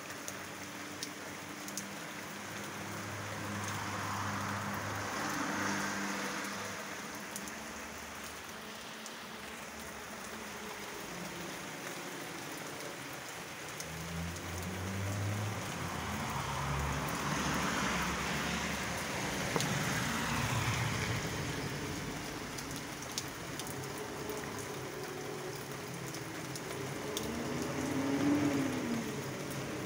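Steady rain falling on a street and garden, with the sound swelling twice, about five seconds in and again around eighteen seconds, as traffic passes on the wet road.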